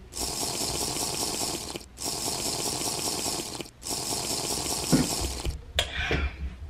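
Drinking hard through a straw from a lidded fast-food cup: three long, loud sucking pulls with short breaks between, then quieter sounds near the end.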